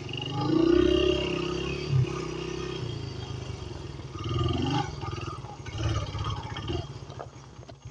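Dirt bike engine running as the bike is ridden slowly, the revs rising briefly about a second in and then rising and falling. Near the end the engine drops to a low, slow idle where the separate firing beats can be heard.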